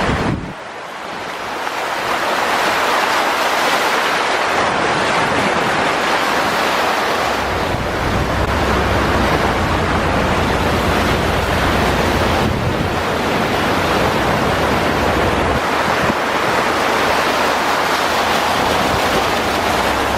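Car driving through deep floodwater on a flooded street: a loud, steady rush of water spray around the car, with a low rumble from about a third of the way in until about three quarters through.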